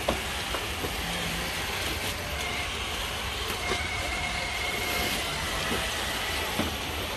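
Steady rush of shallow creek water, with a rubber boot wading through it. A faint steady whine sounds from about two and a half to five seconds in.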